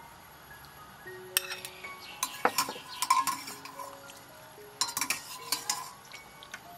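Metal ladle stirring liquid in a stainless steel pot, clinking and scraping against the pot in two bouts, about a second and a half in and again about five seconds in. Soft background music with chiming tones plays underneath.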